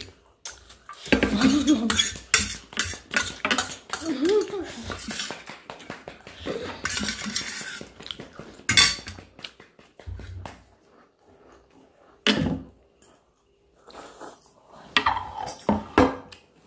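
Steel plates and a fork clinking, knocking and scraping as noodles are eaten quickly, with many short clicks throughout.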